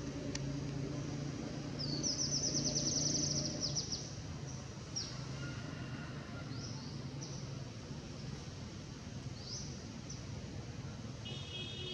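Outdoor ambience with birds calling: a rapid high trill about two seconds in, then short high falling calls every second or two, over a steady low hum.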